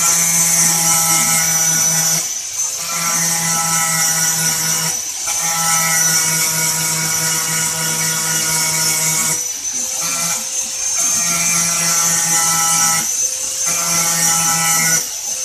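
Small DC gear motors of a model robotic arm and conveyor belt whirring in a series of runs a few seconds long, with short breaks between them as one move ends and the next begins, over a steady high-pitched whine.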